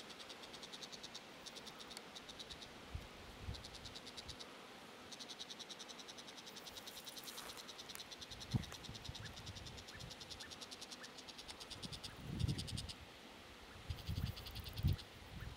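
Insects chirping in repeated trains of rapid, high pulses, with one run lasting several seconds in the middle. A few low bumps in the second half stand out above them.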